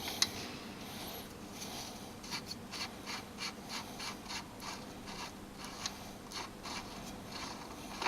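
Short rasping strokes, about four a second, from the CBF125's rear axle nut being worked loose with a hand tool.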